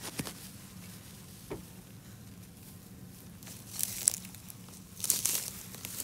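Dry hay rustling and crackling as gloved hands dig into a round hay bale to pull out its strings, with two louder bursts of rustling in the second half.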